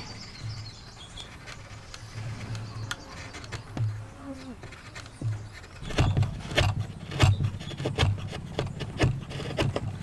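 Hand woodworking on timber: an intermittent low buzz, then about six seconds in a quick run of sharp knocks and strokes on wood.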